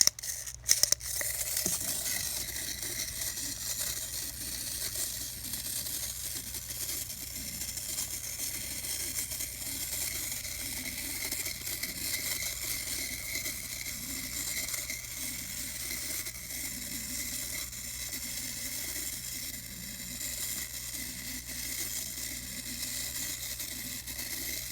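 The clockwork motor of a 1970s plastic Snoopy Joe Cool wind-up walker toy running, a steady fine rattling buzz as it walks. There are a few sharp clicks in the first second.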